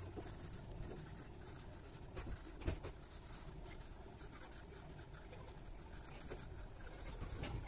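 Pencil scratching on paper in short, repeated shading strokes, with one sharper tap about two and a half seconds in.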